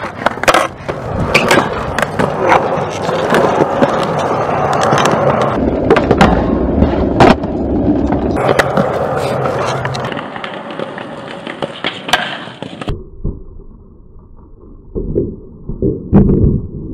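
Skateboard wheels rolling on concrete, with repeated sharp pops and clacks of the board during flatground tricks and landings. About 13 seconds in, the sound changes suddenly to a duller, muffled recording, with a few board impacts near the end.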